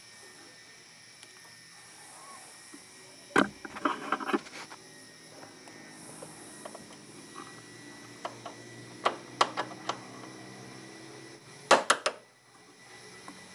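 Sharp metallic clicks and knocks of a hand tool against the bolts of a new steering gearbox as it is fastened in place. They come in irregular groups, with the loudest pair near the end.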